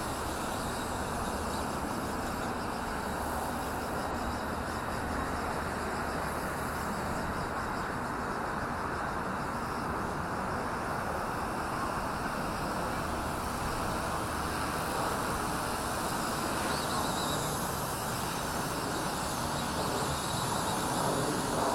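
WLtoys V950 200-size RC helicopter, its brushless motor and rotor blades running steadily in flight as it is brought in to land, with wind noise on the microphone. The sound grows a little louder near the end.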